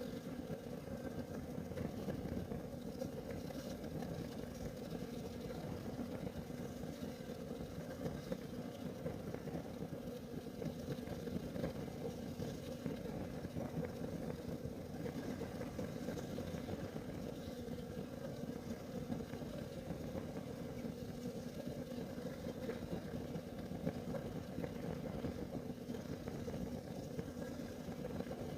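Kerosene heater burning with a steady, rough low rumble that flickers slightly, with a few faint ticks now and then.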